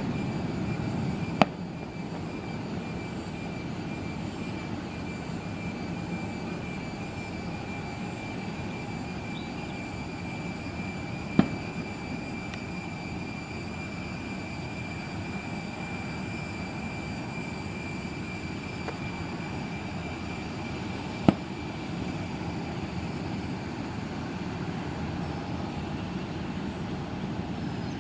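Steady low rumble of distant jet engines at a constant level, with two thin high tones held throughout. Three sharp clicks fall about ten seconds apart.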